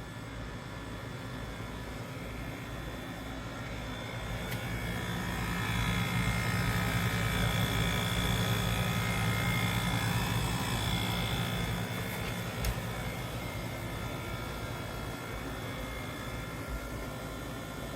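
BLACK+DECKER portable air conditioner running: a steady low hum with a faint high whine, growing louder about five seconds in and easing off slightly near the end.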